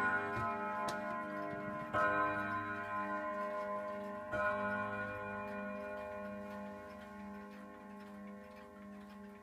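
Old pendulum regulator wall clock striking three o'clock: the ring of the first stroke, then two more deep, ringing hour strokes about two seconds apart, each left to fade slowly. The movement ticks steadily underneath.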